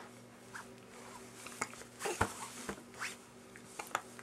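Baby kicking on a changing pad: scattered soft rustles and taps, the strongest about two seconds in.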